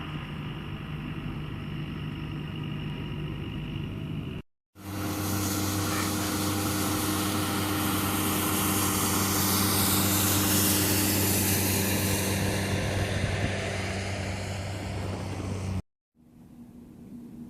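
An engine running steadily with a low hum, under loud rushing noise that swells and eases off, broken by two abrupt cuts.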